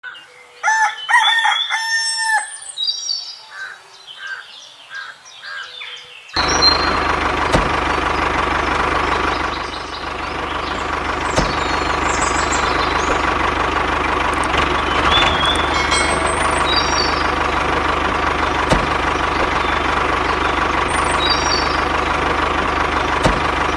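A rooster crows, followed by birds chirping. About six seconds in, a steady machine running starts abruptly, like a small tractor motor, and continues with birds chirping over it.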